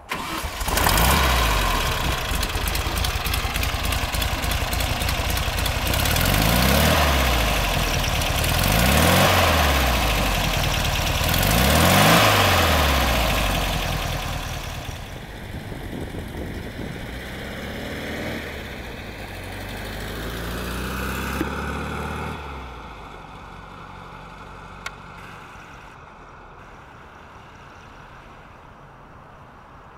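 1971 Volkswagen Beetle's 1600cc air-cooled flat-four engine running, revved up and back down three times. It then drops back, rises in pitch again as the car pulls away, and fades.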